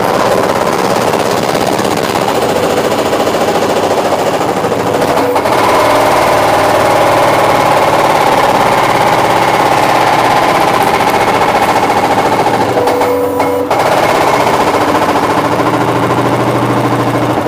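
Skid-steer's hydraulic breaker hammering a concrete floor: a loud, rapid, continuous pounding of the chisel, with a brief pause about thirteen seconds in.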